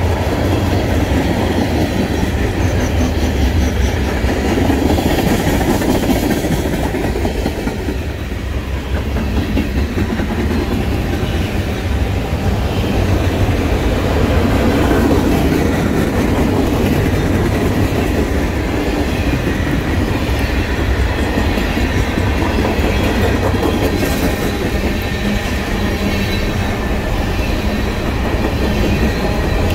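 Canadian Pacific freight train's cars (tank car and covered hoppers) rolling past: the steady, loud noise of steel wheels running on the rails.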